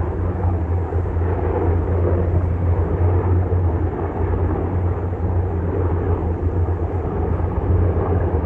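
Sikorsky UH-60 Black Hawk helicopters running during takeoff: a loud, steady, low rotor and turbine noise that holds throughout.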